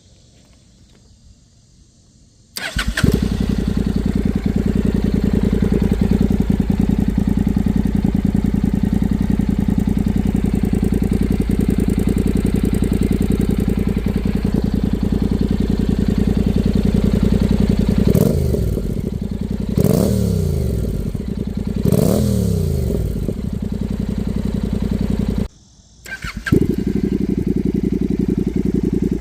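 2014 Honda CTX700N's parallel-twin engine breathing through a KO Lightning muffler with its baffle left in: it starts about two and a half seconds in and idles steadily, is revved three times, each a quick rise and fall in pitch, then cuts out for about half a second near the end and idles again.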